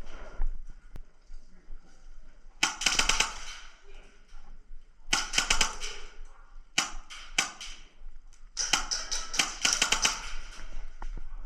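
Airsoft guns firing rapid strings of shots: short bursts a few seconds in, around the middle, and a longer burst near the end, each a quick run of sharp cracks.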